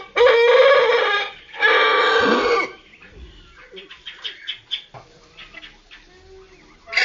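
Rooster crowing slowed down, the calls drawn out and lowered in pitch: two loud, long calls in the first three seconds, followed by softer scattered sounds.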